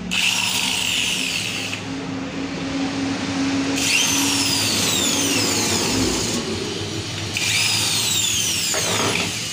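Corded electric drill with a socket attachment spinning off the nuts on a scooter carburettor, in three short runs. Its motor whine drops in pitch during each run.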